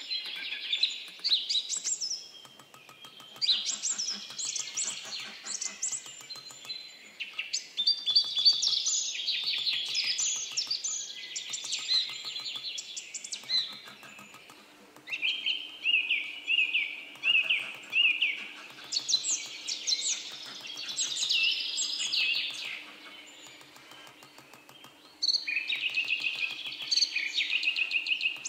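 A songbird singing in long runs of chirps and trills with short pauses, over quick, light, rapid taps of a small hammer on an engraving chisel cutting into a pierced copper plate.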